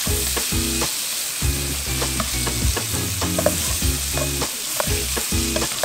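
Shrimp, broccoli and mushrooms sizzling in oil in a frying pan on a portable gas burner, with a steady hiss. A plastic slotted spatula stirs them, clicking and scraping against the pan many times.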